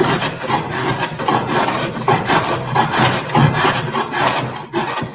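Scrub plane shaving the rough face of a board in quick repeated strokes, about two a second, each a rasping scrape of the blade through the wood; the plane is set to a light cut.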